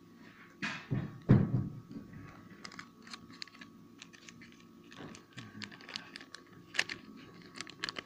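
Fingers handling and picking open a small clear plastic bag: crinkling plastic with many short clicks and crackles. There are two louder handling thumps about a second in.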